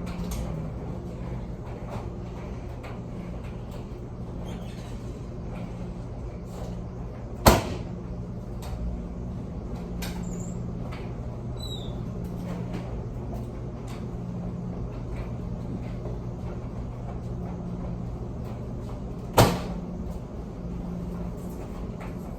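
Steady low machine hum with faint scattered ticks, and two loud, sharp knocks about twelve seconds apart, the first about seven seconds in.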